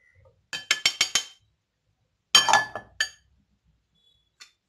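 Metal spoon tapping against stainless-steel bowls while knocking out cornflour: a quick run of about six light clinks, then a louder ringing clink and a couple of fainter ones.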